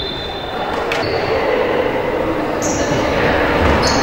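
Indoor basketball game noise in an echoing sports hall: a steady murmur of voices, a sharp knock about a second in, and short high sneaker squeaks on the hardwood court about three seconds in and near the end.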